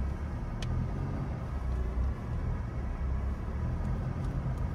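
Steady low engine and road rumble heard from inside a car's cabin as it drives slowly, with a faint click about half a second in.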